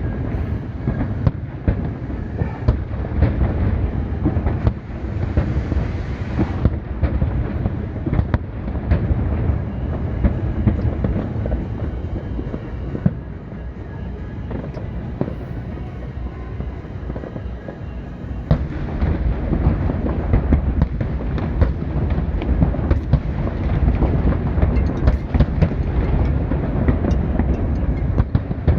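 Fireworks display: a dense, continuous barrage of bangs and crackles over a low rumble, easing a little midway and building again later.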